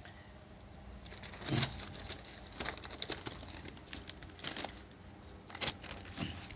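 Faint, irregular light clicks and short rustles, scattered over several seconds.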